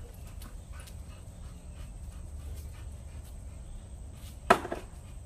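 Dog panting, with one short, loud bark about four and a half seconds in.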